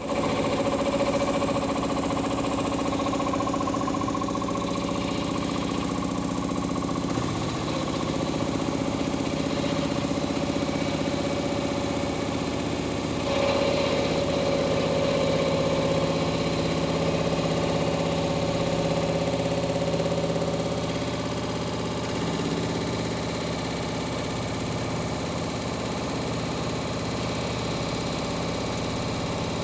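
LG washing machine running with a strange noise: a steady pitched hum with a fast pulsing rattle under it, which swells about halfway through and eases a little later. The owner doubts it is the drum bearings, since they were recently replaced and the drum spider was found sound.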